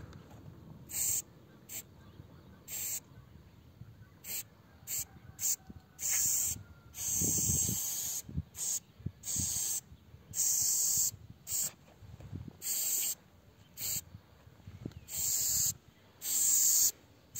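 Aerosol spray paint can spraying in a quick series of short hissing bursts, some a fraction of a second and others up to about a second, with brief pauses between.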